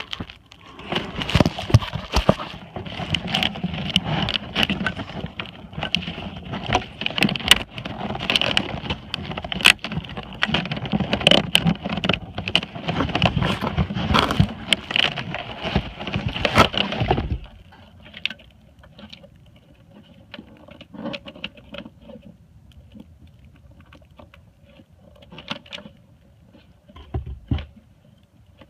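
Close clicking and rattling of plastic parts and wiring being handled: dense and loud for about the first seventeen seconds, then stopping suddenly, with only scattered small clicks after.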